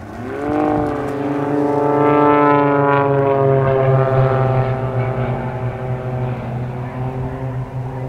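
Extra 300 aerobatic plane's piston engine and propeller. Its note rises in pitch about half a second in, then holds as a steady drone that slowly falls in pitch.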